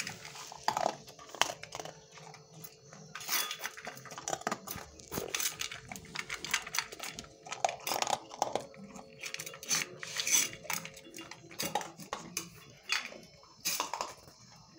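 A dog eating large dry kibble from a metal bowl: irregular crunching, with pellets and bowl clinking and rattling as it eats.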